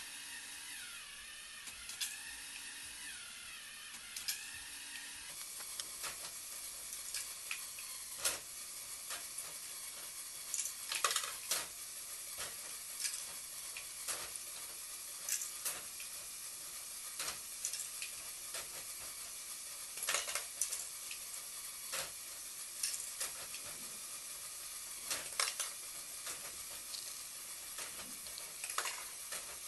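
LEGO Technic axle sorter running: hard plastic parts click and clatter at irregular intervals, sometimes in short bursts, over a steady high hiss. For the first few seconds the electric motor and gears also whine faintly.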